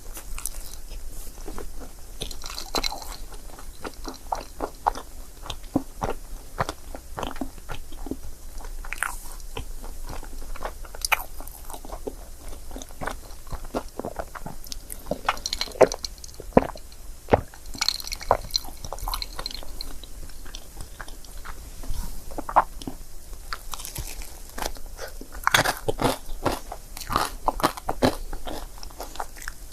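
Close-miked chewing and biting of crepe cake, with irregular small crunches, crackles and wet mouth clicks throughout.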